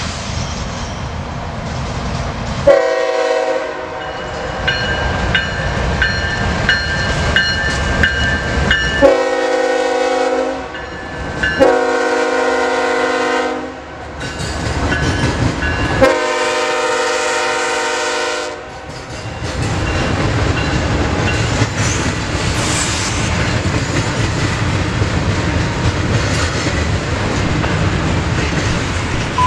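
CSX diesel freight locomotive sounding its air horn in four long blasts over the engine's rumble as it approaches and passes. The last blast ends about two-thirds of the way through. Then the double-stack container cars roll by with steady wheel clatter on the rails.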